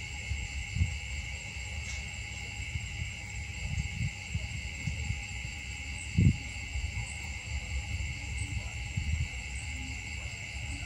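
Steady chorus of insects, several high unbroken drones at once, over a low rumble with a few dull thumps, the loudest about six seconds in.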